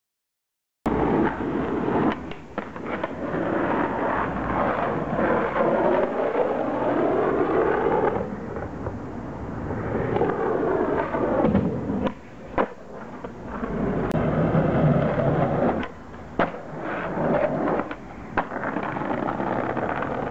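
Skate wheels rolling hard over rough asphalt and a ramp: a steady gritty rumble with many sharp knocks of wheels and landings scattered through it, bunched near the start and near the end.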